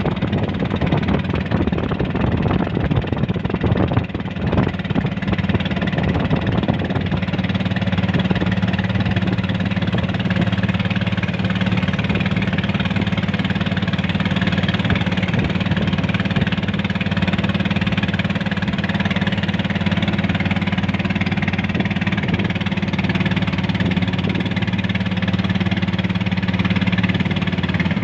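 Small wooden fishing boat's engine running steadily under way, a constant low drone with a rough, rattly edge.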